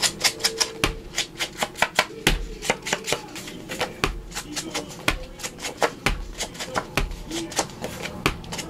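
Round foam ink blending tool dabbed over and over along the edges of a paper tag lying on a cutting mat, inking the edges: quick, irregular soft taps, several a second.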